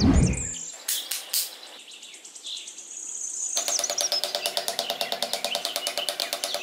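Birds chirping, with a low whoosh right at the start and two sharp clicks about a second in. About three and a half seconds in, background music with a fast, even beat comes in under the birdsong.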